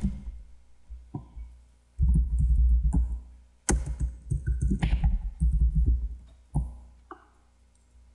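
Typing on a computer keyboard in short bursts of rapid keystrokes, each with a dull thud.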